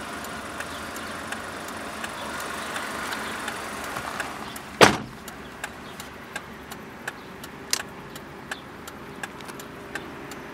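Car driver's door shut from inside with one loud thump about five seconds in, after a steady hiss of outside noise through the open door; faint regular ticks follow, roughly two a second.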